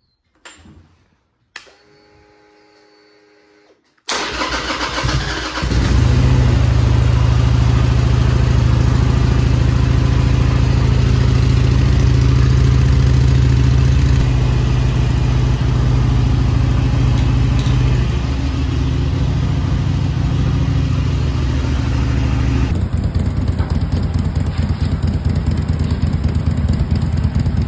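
Harley-Davidson Sportster's V-twin engine being started. A short whine comes as the ignition is switched on, then about four seconds in the starter cranks and the engine catches and settles into a loud, steady run.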